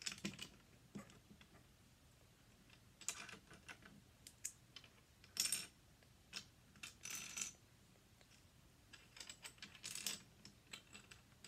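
Small plastic LEGO pieces being handled and pressed together: faint, scattered clicks and short rattles, the loudest about five and a half seconds in.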